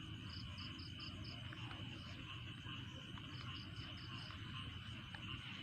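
Insects and frogs calling: a steady high-pitched insect trill, with two runs of about five quick chirps, one near the start and one about three and a half seconds in, over a low steady rumble.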